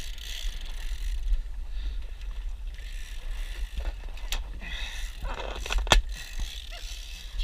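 Wind rumbling on the microphone over the hiss of open water, with two sharp knocks about four and a half and six seconds in.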